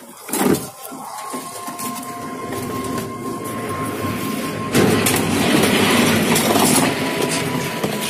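Plastic washing-machine cabinet parts being handled as the upper body is lifted off the lower body: a sharp knock about half a second in, then rubbing and rattling that grows louder and is loudest past the middle. A faint steady tone sounds in the background.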